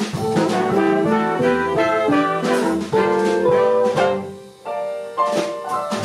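Jazz horn section of trumpet, trombone, tenor and baritone saxophones playing a melody together in harmony, with drums behind. The ensemble breaks off briefly about four and a half seconds in, then comes back in.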